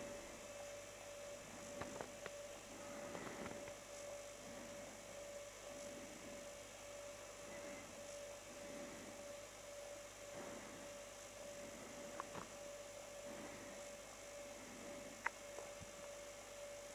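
Faint steady hum on one tone, with soft rustles about once a second and a few small clicks, the sharpest near the end.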